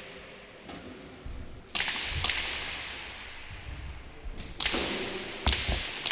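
Hand-pelota ball being struck and bouncing off the walls and floor of an indoor frontón: a series of sharp smacks, each with a long echo, coming closer together in the second half. The pelota has just been changed for a new one.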